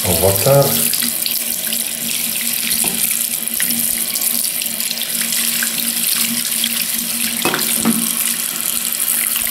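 Tap water running from a chrome spray head into a sink, with a steady splashing hiss as it pours over a bar of soap held in a wet hand.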